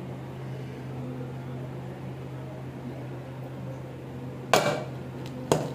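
A low, steady hum throughout. About four and a half seconds in, a steel mixer-grinder jar lid goes onto the jar with a sharp metal clank, and a lighter click follows a second later.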